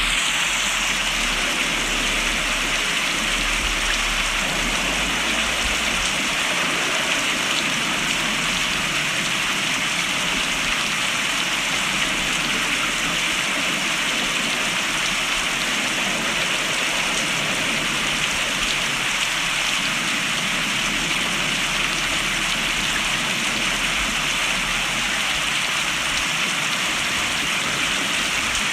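Steady heavy rain falling, an even hiss that holds at the same level throughout.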